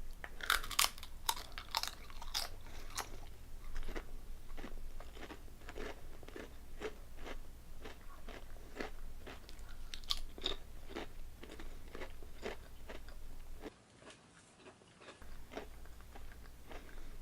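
Close-up crunching of potato chips being chewed, the crisp bites coming at about two to three a second, with a brief silent break near the end. The chips are Calbee Honey Butter Chips.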